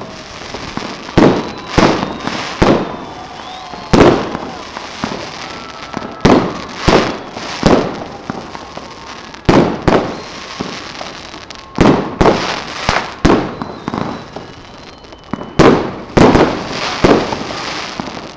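Aerial fireworks bursting overhead: a string of sharp bangs at irregular intervals, about one a second, some in quick pairs and runs, over a steady background of noise.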